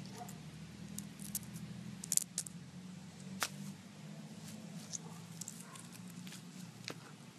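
Chunks of coloured ice being picked up and handled: scattered light clicks and taps, the sharpest about two seconds in, over a low steady hum.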